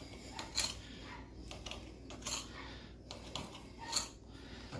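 A knife cutting a rolled log of cinnamon-roll dough into pieces, with a few faint, irregular knocks and clinks.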